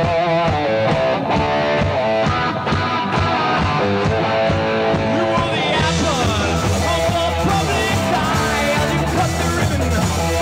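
Live rock music: electric guitar playing, then about halfway through the full band with bass and cymbals comes in and a vocalist sings over it.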